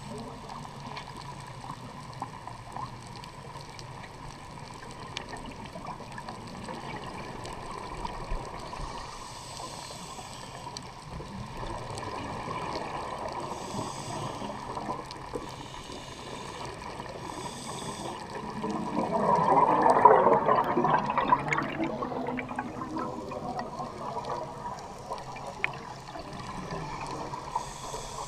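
Scuba diver breathing through a regulator, heard through an underwater camera housing: a steady underwater wash with faint hisses of inhalation, and about two-thirds of the way through a loud gurgling burst of exhaled bubbles lasting a few seconds.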